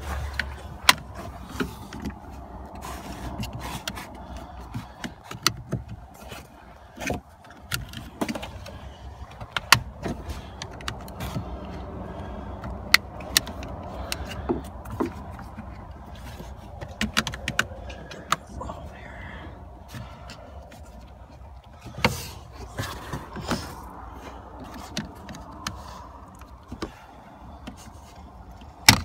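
Scattered sharp plastic clicks and knocks as hands pry at and work the clips of the red positive-terminal cover on a Toyota Prius's 12-volt battery, over a steady low hum.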